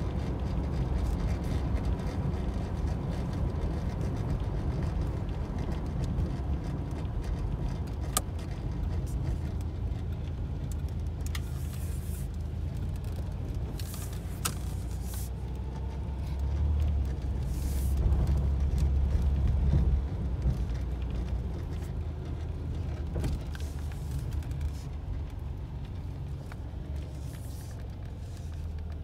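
Inside the cabin of a 1985 Oldsmobile Cutlass Supreme on the move: a low, steady rumble from its 3.8-litre V6 and the tyres. The rumble swells louder for a few seconds a little past the middle. A few scattered sharp clicks and ticks come through on top.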